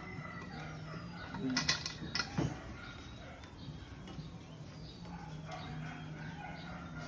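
Metal bicycle parts and tools handled during a bike build: a few sharp clicks and knocks about a second and a half in, over a steady low hum.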